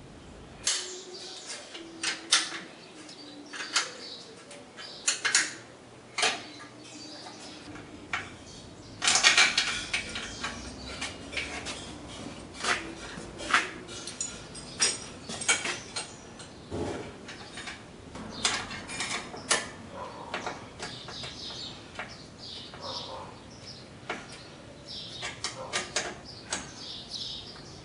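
Irregular metallic clinks and taps of open-end wrenches against aluminium tubing and a bolted bracket as a bent aluminium tube is fitted under a tail boom.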